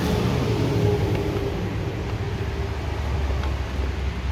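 Steady low engine rumble, with a faint hum that fades out about halfway through.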